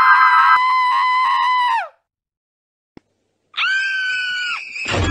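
Two high-pitched screams used as jumpscare sound effects. The first holds one steady pitch, then drops in pitch and cuts off about two seconds in. After a silent gap a second scream starts, and near the end a loud thud breaks in.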